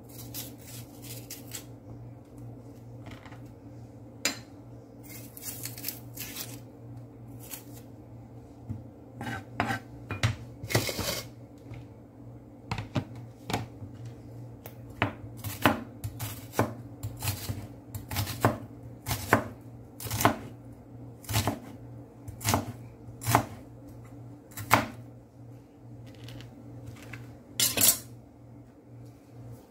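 Chef's knife slicing an onion on a plastic cutting board: a string of sharp taps of the blade on the board, about one a second through the second half, over a steady low hum.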